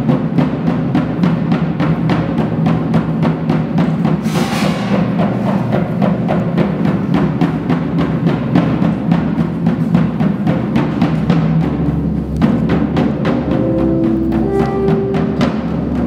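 Electronic music with a fast, steady stream of short percussive hits over a low drone, and a swell of hiss about four seconds in.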